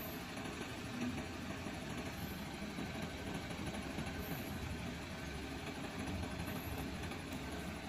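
Isuzu NPR crane truck's engine idling steadily.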